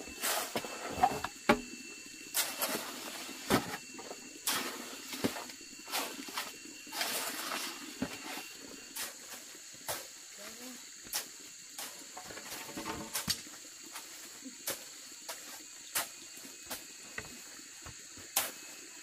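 Irregular clicks, snaps and brief rustles, about one or two a second, over a steady high-pitched drone.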